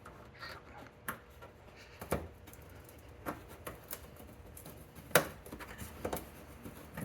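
Irregular plastic clicks and knocks as a pick and fingers work the plastic push-pin clips out of a car's wheel-well liner, with one sharper knock about five seconds in.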